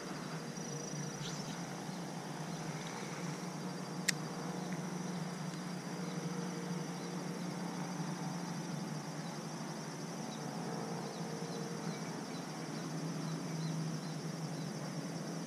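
Steady chirring of insects, crickets among them, with a low steady hum underneath and a single sharp click about four seconds in.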